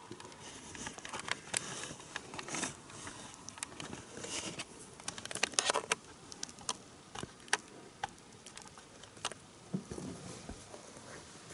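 HO-gauge model train rolling along sectional track, its wheels clicking irregularly over the rail joints and crossing over a faint running hiss. The clicks come thickest about five to six seconds in and thin out near the end.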